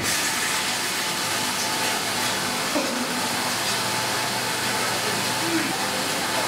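Semi-automatic cask washer running its wash cycle, jets blasting inside two upturned casks on its cleaning heads: a steady hissing rush that starts abruptly.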